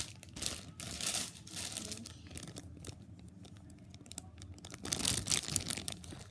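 Clear plastic packaging bag crinkling as it is handled, loudest in the first second or two and again about five seconds in, softer in between.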